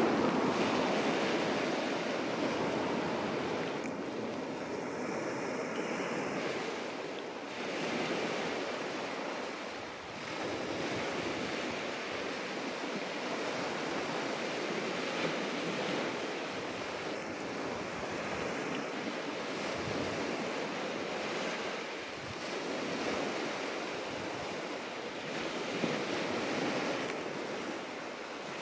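Sea waves washing onto the beach, the surf swelling and easing every few seconds, with wind buffeting the microphone.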